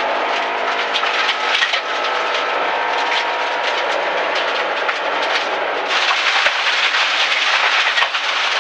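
Rally car heard from inside the cabin, running on a loose gravel road: tyre and road noise with a dense rattle of stones pinging off the underside. The engine note fades in the first second. About six seconds in, the gravel noise grows louder and brighter.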